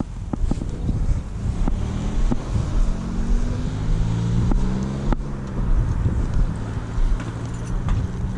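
A car driving past on the road, its engine hum swelling in the middle and fading, with the walker's footsteps and wind buffeting the microphone.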